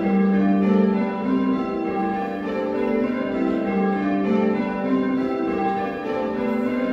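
A ring of six church bells, a 1978 Whitechapel six with the tenor in G, rung full-circle in call changes. The bells strike one after another in a steady, evenly spaced round, heard from the ringing chamber below the bells.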